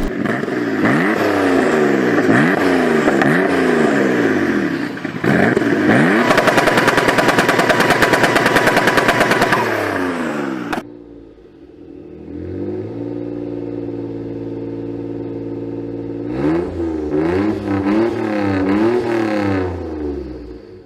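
Mitsubishi 6G72 3-litre twin-turbo V6 revved in a series of quick blips, then a stretch of rapid, even pulsing at high revs. It breaks off suddenly about ten seconds in, settles to a steady low run, and is blipped again near the end.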